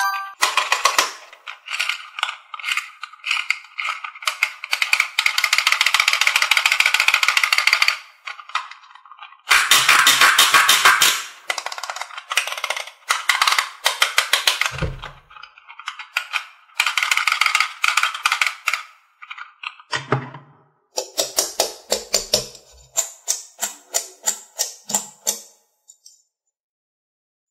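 Bursts of rapid clicking and rattling from small plastic toys being handled, including the clockwork ratchet of a wind-up chick toy, with short pauses between the bursts. The clicking stops about a second before the end.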